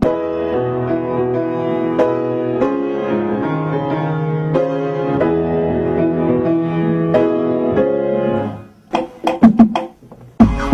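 Grand piano playing a slow progression of held chords, changing every second or two, that stops after about eight seconds; a few sharp percussive hits follow near the end.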